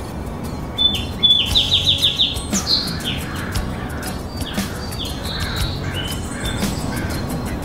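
Small songbird calling: a string of high chirps and short whistles, with a quick run of about six notes a little over a second in and a sharp falling whistle just after it.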